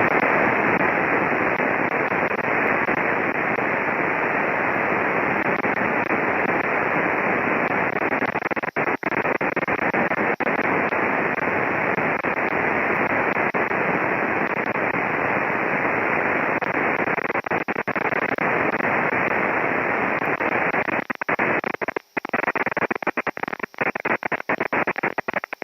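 Steady radio static hiss on the cockpit's air traffic control audio feed, with no voice on the frequency. Near the end the hiss keeps cutting in and out in quick dropouts.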